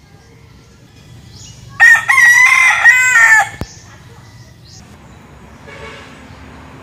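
A young rooster crowing once, a single loud cock-a-doodle-doo about a second and a half long starting about two seconds in: a territorial crow announcing his presence to other roosters.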